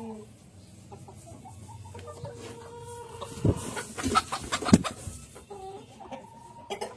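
Silver Cochin chickens clucking, with drawn-out pitched calls. A run of sharp knocks midway, the loudest about two-thirds of the way through.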